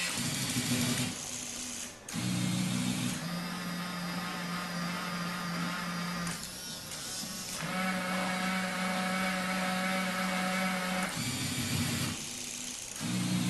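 Small electric gear motors of a tabletop model automated factory running in turn: a steady whirring hum that breaks off and starts again several times as different stations move. A higher-pitched motor whine joins it from about eight to eleven seconds in.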